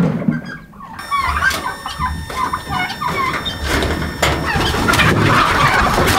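A flock of domestic chickens clucking and squawking in their coop, growing busier toward the end as the birds come out. A few sharp knocks and clatters sound as the wooden and wire coop door is opened.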